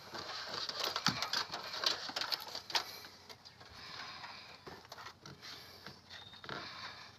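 Hands pressing a thin wire in under the carpet edge and plastic door-sill trim of a car: soft rustling and scraping with scattered small clicks.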